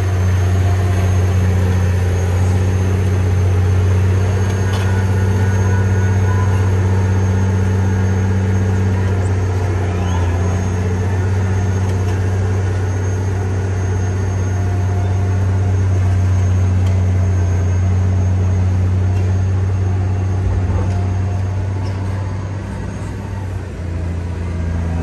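Caterpillar D9T crawler dozer's Cat C18 diesel engine running steadily with a deep, even drone, easing off slightly near the end.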